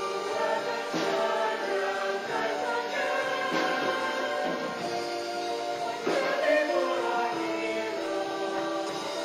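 Music: a choir singing long held notes, the harmony shifting every two to three seconds.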